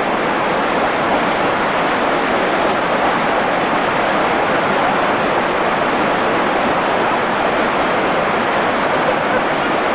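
Steady, loud rushing of water, with no break or change.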